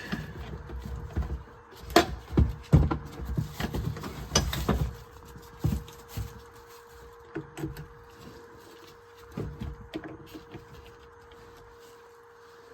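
Metal clicks and clanks of a battery terminal being reconnected with a hand tool, thickest in the first five seconds and then thinning to occasional knocks, over a faint steady hum.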